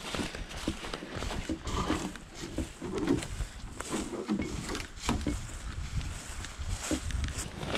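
Footsteps crunching along a forest trail, with irregular heavy breathing from someone walking under the load of a portaged canoe.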